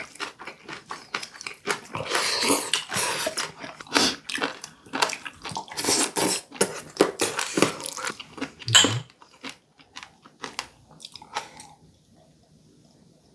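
Close-miked chewing of crunchy sea squirt: wet crackling bites and mouth noises in a quick, irregular stream. The chewing thins out and stops about a second and a half before the end.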